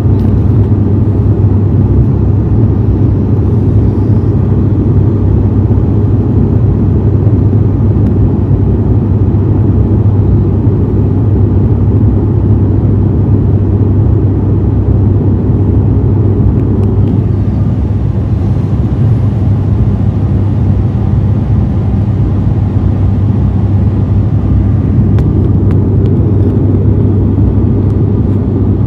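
Loud, steady drone of an ATR 72-600's twin turboprop engines and propellers in flight, heard inside the passenger cabin as an even low hum that doesn't change.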